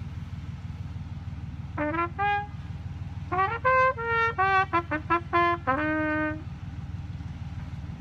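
Trumpet playing a short tune: two notes about two seconds in, then a quick run of about ten notes ending on a longer held one. A car engine idles with a steady low hum underneath.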